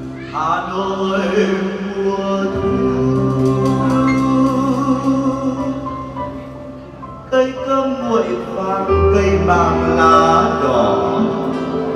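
Male vocalist singing with acoustic guitar accompaniment, holding long notes. The voice breaks off briefly a little past the middle, then comes back in.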